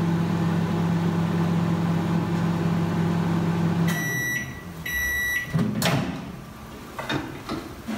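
Microwave oven running with a steady hum while it heats a wheat bag; the hum stops about four seconds in, and two beeps mark the end of the heating cycle. The door is then clicked open, followed by a few light knocks.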